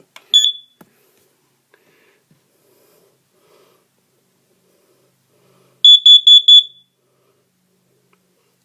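Carbon monoxide alarm's high-pitched beeper sounding on test: one short beep, then a pause of about five seconds, then a quick run of four beeps.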